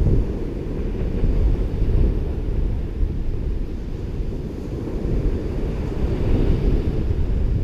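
Wind buffeting the microphone in a low, gusty rumble over the fainter wash of ocean surf on a beach.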